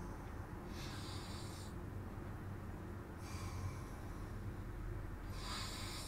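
Sleeping man breathing heavily: three hissing breaths come roughly every two and a half seconds over a steady low hum.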